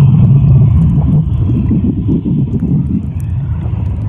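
Loud, muffled underwater rumble of churning water and bubbles, heard through a camera held under the surface of a pool among swimmers.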